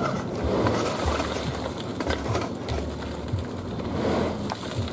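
Dump truck engine running with its bed raised as a load of gravel tips out of the back, stones rattling and clattering onto the road.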